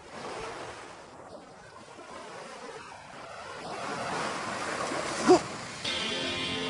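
Surf washing on a sandy beach with wind, swelling louder a few seconds in. A brief cry that rises and falls comes about five seconds in, and background music begins near the end.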